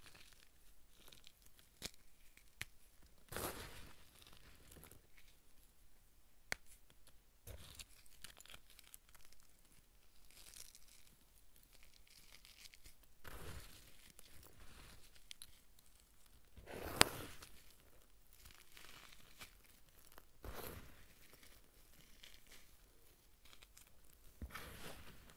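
Fingers crushing pastel-coloured comet dust chunks, which break up with soft crunches and crumbles every few seconds, the loudest a sharp crack about 17 seconds in.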